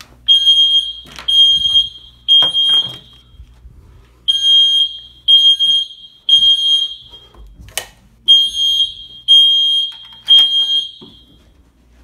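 Dormitory fire alarm sounding a high-pitched beep in the three-beep temporal evacuation pattern: three beeps about a second apart, then a pause, three groups in all. One sharp click cuts in between the second and third groups.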